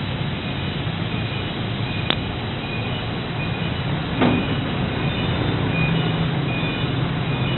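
CNC plasma cutter running: a steady loud hiss over a low hum, with a sharp click about two seconds in and another about four seconds in.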